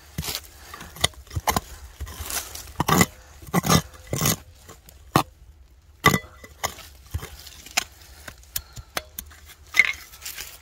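Irregular knocks and clinks of a hand digging tool striking and prying at stones and lime mortar in a stone pile, with a short gap of silence about five seconds in.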